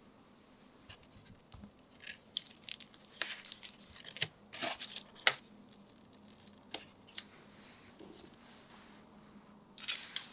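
Aluminium foil crinkling and crackling in a run of sharp rustles as hands peel the skin off a baked sweet potato lying in it, followed by a couple of single soft ticks and a short rustle near the end.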